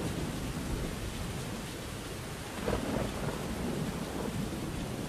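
Steady rushing noise with a low rumble that swells briefly about three seconds in.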